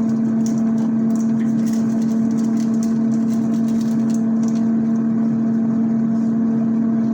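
Steady electric motor hum: one strong, unchanging pitch with its overtones over a fan-like hiss, with a few faint clicks.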